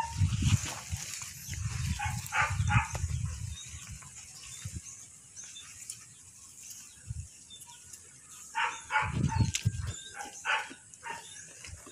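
Goats nosing and rubbing right against the phone's microphone, giving close rumbling and snuffling noise in two spells. Clusters of short animal calls come with them.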